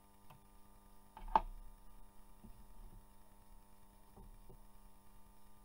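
Steady low electrical hum, with one sharp click about a second and a half in and a few fainter ticks scattered after it.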